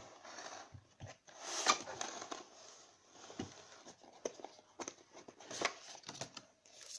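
Cardboard packaging being handled: panels of a cardboard box sliding and rubbing, with light taps and knocks, and a longer scraping rustle about a second and a half in.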